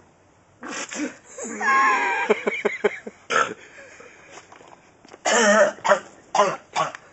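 A young man coughing and hacking hard after taking a spoonful of dry cinnamon, the powder irritating his throat. The coughs come in two fits, from about half a second in and again from about five seconds in, with a strained, drawn-out hack in the first fit.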